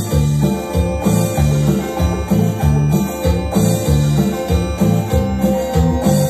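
Music played on two stacked electronic keyboards: a rhythmic bass line repeating under sustained chords and melody notes.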